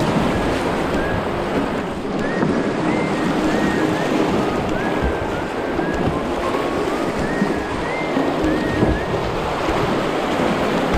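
Shallow whitewater rapids rushing and splashing around a kayak's bow, heard close from the boat, with splashes from the paddle strokes. Steady, loud water noise with no pauses.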